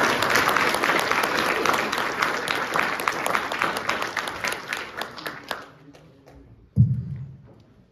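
Audience applauding, many hands clapping, dying away about five to six seconds in. Near the end a single low thump.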